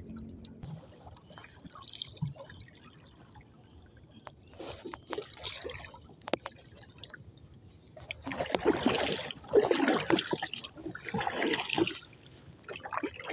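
Wooden paddle stroking through water from a small boat: a series of splashy swishes, about one stroke every second or so, louder in the second half.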